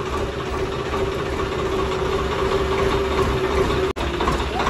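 Swaraj 855 tractor's diesel engine idling steadily. The sound cuts out for an instant about four seconds in.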